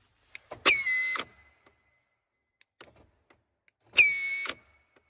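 A BMW E93's locking system making a weird high-pitched whine twice, each lasting about half a second and about three seconds apart, with faint clicks between. The owner treats it as an abnormal locking sound.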